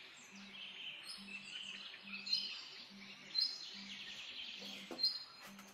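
Small birds chirping and twittering in the background, with a few louder calls. A faint low hum comes and goes underneath, and a couple of light clicks sound near the end.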